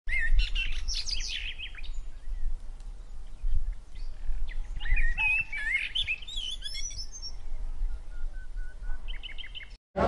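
Several small birds chirping and whistling in bursts, ending with a quick run of repeated high calls, over a steady low rumble.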